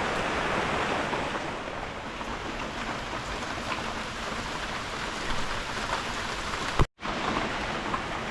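Steady rain falling, an even hiss of heavy rain with no engine or voice over it; the sound breaks off for an instant about seven seconds in.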